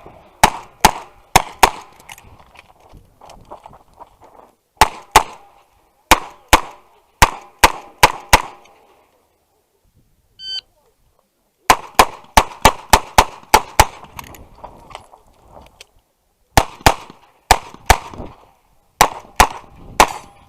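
Revolver gunfire: rapid strings of sharp shots, several a second, broken by short pauses, with a longer silent gap about halfway through.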